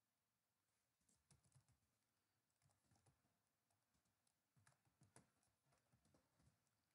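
Very faint computer keyboard typing: scattered single keystrokes, a few slightly louder ones around 1.5 and 5 seconds in.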